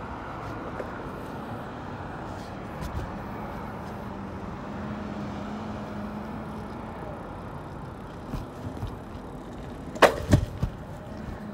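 Wind and road noise on a moving e-bike, with a steady low hum that sets in a few seconds in. Two sharp knocks come close together near the end.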